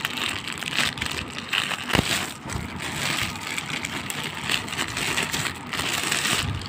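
Thin plastic wrapping crinkling and rustling as a plastic football is worked out of it, with one sharp knock about two seconds in.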